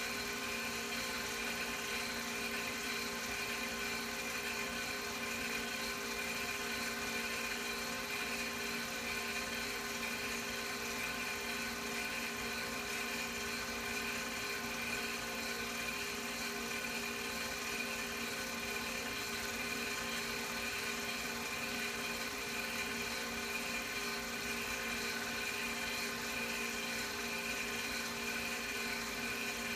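Steady whir of a film projector motor running, an even mechanical hum with several fixed tones that does not change.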